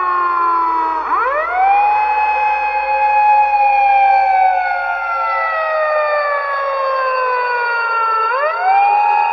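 Siren wailing in several stacked tones. The pitch climbs quickly about a second in, holds, then slides slowly down for several seconds before climbing quickly again near the end.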